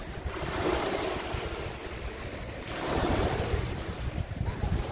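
Small waves washing up onto a sandy beach, the surf swelling twice, about half a second in and again around three seconds in. Wind buffets the microphone with an uneven low rumble underneath.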